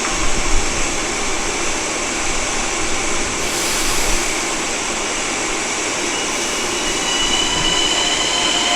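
Long Island Rail Road diesel train with a DE30AC locomotive running past: a steady rush of engine and wheel noise, with a thin high wheel squeal coming in near the end.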